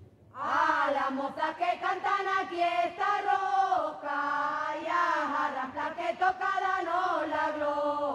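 Slow, chant-like singing with long held, wavering notes, starting about a third of a second in.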